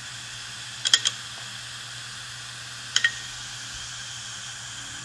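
Opened hard disk drive spinning with a steady hum and hiss, its head arm clicking three times in quick succession about a second in and twice more about three seconds in: the drive struggling to read after the magnet test.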